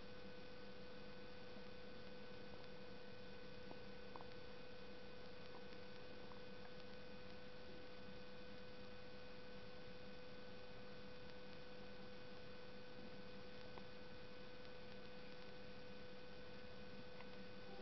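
Faint, steady electrical hum made of several unchanging tones over a low hiss, with a few faint ticks.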